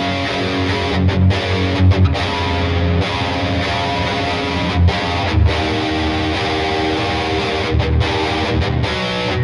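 Gibson SG Standard electric guitar played through a distorted amp tone: heavy chords and riffs with a strong low end, broken by short stops between chords.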